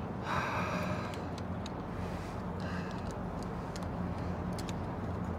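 Steady low rumble of city background noise. A short breathy vocal sound comes about half a second in, and from about the middle on there are light, scattered metallic clicks of padlocks being handled on a fire-escape railing.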